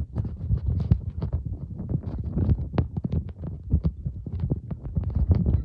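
Running footsteps, several quick knocks a second and unevenly spaced, over a heavy rumble of wind on the microphone.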